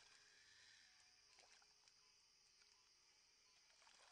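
Near silence: faint night-time outdoor ambience, a steady high hiss with a few faint ticks.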